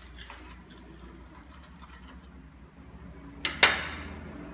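A steel table knife set down on a ceramic plate: two quick sharp clinks with a short ring, about three and a half seconds in.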